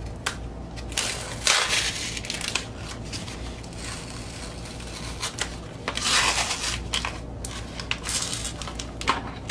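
Padded paper mailer crinkling and rustling under hands picking at its flap and pressing it on the desk, in several bursts, loudest about a second and a half in and again about six seconds in.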